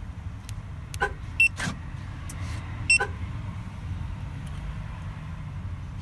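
Two short, high electronic beeps from a Clifford alarm's two-way pager remote, about a second and a half apart, signalling that the alarm has been triggered by an open door. A few other short chirps and a steady low rumble sound alongside.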